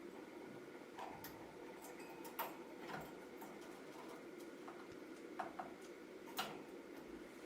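Budgie's beak making scattered small clicks and taps, about half a dozen irregular ones, faint over a low steady room hum.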